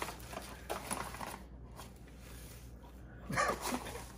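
Packet of dry sausage seasoning rustling and crinkling as it is shaken out into a glass bowl, with light clicks and the soft patter of the powder.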